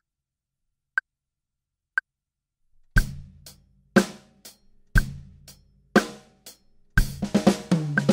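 Metronome clicking once a second at 60 BPM as a count-in. About three seconds in, a drum kit comes in with a slow groove of eighth-note hi-hat, bass drum and snare. Near the end it breaks into a dense fill of 32nd-note strokes on snare and toms with bass drum.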